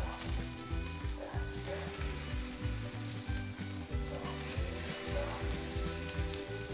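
Asparagus sizzling in a wire grill basket over hot charcoal as melted butter is brushed on, a steady crackling hiss. A low rhythmic pulse runs underneath.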